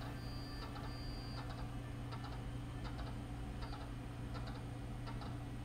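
Computer keyboard keys clicking in small clusters of two or three, about every three-quarters of a second, over a steady low electrical hum.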